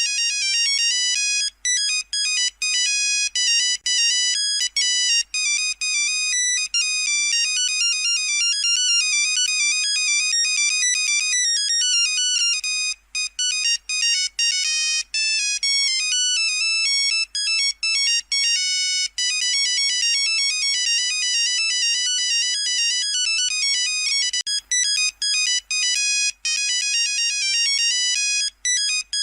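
Nokia 3310 monophonic ringtone playing: a fast melody of short electronic beeping notes, with brief breaks between phrases.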